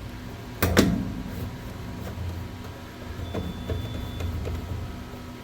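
A roller being fitted onto a DTF powder shaker's frame: a sharp knock about a second in with a short ring after it, then several light knocks of parts being handled.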